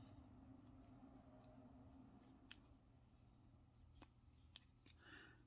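Near silence: faint room hum with about three small clicks from an aluminium crochet hook being worked through yarn.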